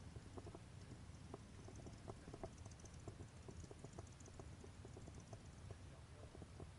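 Faint background of low rumble with a rapid, irregular patter of soft ticks and clicks, typical of a hand-carried camera being walked along. No motorcycle engine is running.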